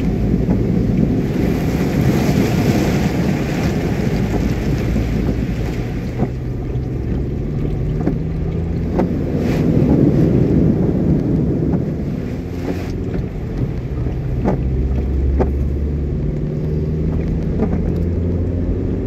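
A car driving through floodwater over the road: water spraying and splashing against the windshield and body, loudest in the first few seconds, over the steady low drone of the engine and tyres. A few light clicks come later on.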